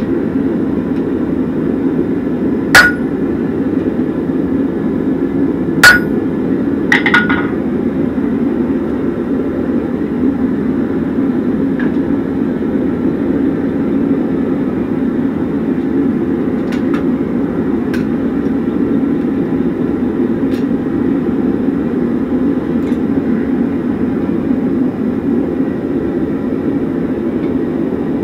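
Two hammer blows on a blacksmith's chisel punching a slot through a red-hot half horseshoe on a Hay Budden anvil, about three seconds apart, each with a short metallic ring, followed by a lighter clatter of metal about seven seconds in. A steady low rushing noise runs underneath.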